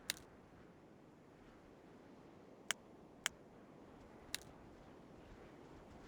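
Four short, sharp clicks, irregularly spaced, over a faint steady hiss.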